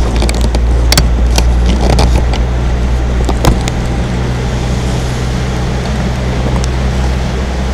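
Motorboat engine running steadily under way, a low drone, with water and wind rush over it. A few sharp knocks come in the first few seconds.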